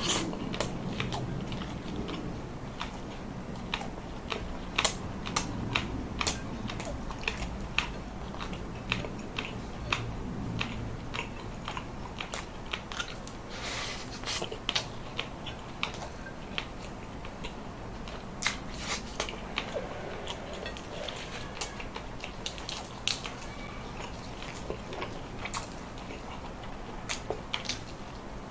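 A person chewing and biting food close to the microphone, with many sharp crunches at irregular intervals.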